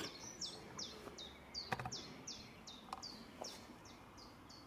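A small songbird singing a steady series of short, high notes that each fall in pitch, about three a second. A sharp click sounds about two seconds in, with a fainter one a second later.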